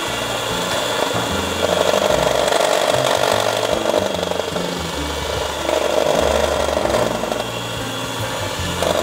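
Electric hand mixer whirring as it beats cake batter, growing louder and easing off a few times as the beaters work through the bowl.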